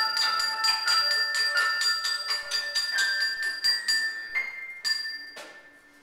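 Closing bars of a free-jazz piece: flute and alto saxophone holding long high notes that step between pitches over quick, even taps of small bell-like percussion, about five a second. The taps thin out and the music fades to near quiet near the end.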